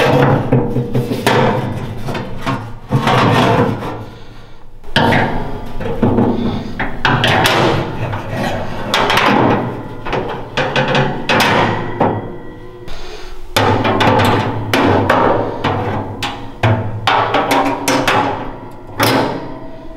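Sheet metal and steel grill grates clanking and rattling as they are set down into the steel barrel of a pellet grill, in a run of repeated knocks.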